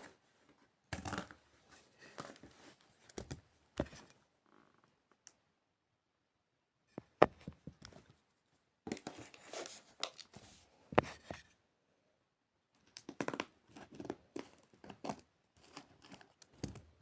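Scissors cutting cardboard: irregular crunching snips in clusters, with a few sharp clicks and two short pauses.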